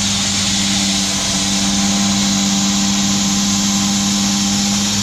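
Large diamond-bladed concrete saw running at a steady pitch as it cuts into a concrete curb, with a constant hum under a grinding hiss.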